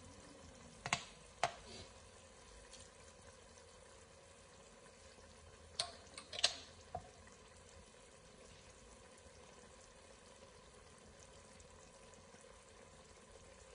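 Pot of tomato-and-vegetable sauce simmering quietly on a gas stove, with a few sharp clicks about a second in and a small cluster of them around six seconds.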